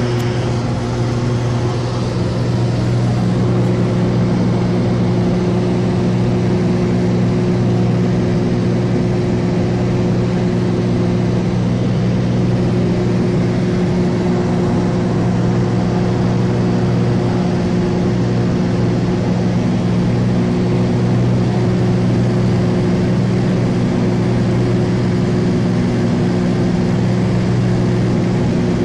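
Cessna light aircraft's piston engine and propeller droning steadily in flight, a constant low hum with several even tones.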